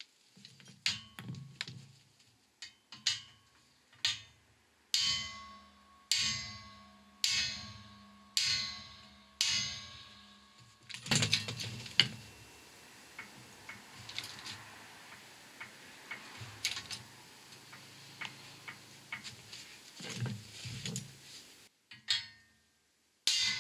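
Metal knocks and clicks from working a 6-ton hydraulic shop press to push a wheel bearing out of its hub carrier: a run of about six ringing clanks roughly a second apart, then a single louder crack, then lighter scattered clicks.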